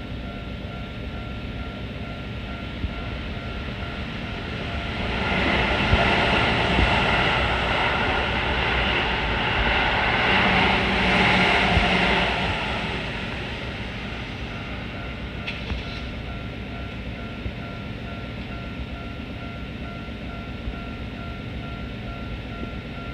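Japanese level-crossing bell ringing its steady, even 'kan-kan' alarm, while Keihan Main Line trains pass through the crossing about five seconds in, their rumble swelling twice and fading by about thirteen seconds. The bell goes on ringing after the trains have passed.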